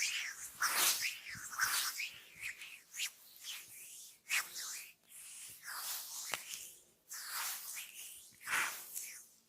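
Hands rubbing and sliding over skin during a massage: a run of swishing strokes, roughly one a second, with a sharp click or slap a little past the middle.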